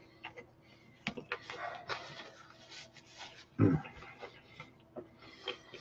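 A person chewing a mouthful of hot-pepper pizza: soft wet mouth clicks and smacks, and breaths through the nose. A short low grunt comes about three and a half seconds in.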